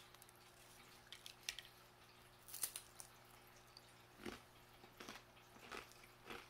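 Faint, irregular crunches of a thin, crisp rye crispbread (Finn Crisp multigrain sourdough rye thin) being chewed with the mouth closed, a crunch every half second to a second.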